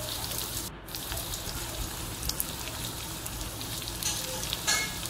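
Rice and vegetables frying in a small iron kadai over a live flame, a steady sizzling hiss as they are stirred with a spoon, with a few light clicks of the spoon.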